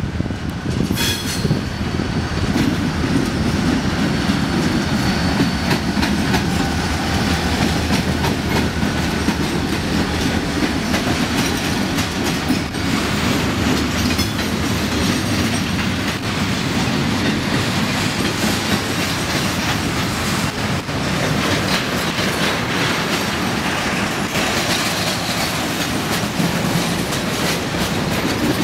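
Diesel-electric freight locomotives running past at close range, followed by freight cars whose steel wheels clatter over the rail joints.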